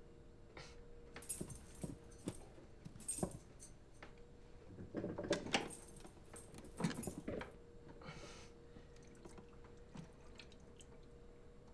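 Metal parts of a kitchen sink faucet clinking and scraping against each other as it is taken apart by hand, in two clusters of sharp, ringing clinks. A faint steady hum runs underneath.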